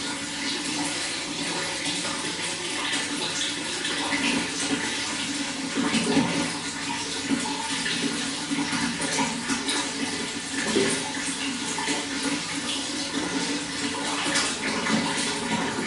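Running water flowing steadily, an even rushing and splashing that never stops.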